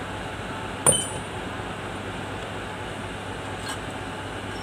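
Metal parts handled on a workbench: one sharp metallic clink about a second in, with a short ring, and a faint tick near the end, over a steady background hum.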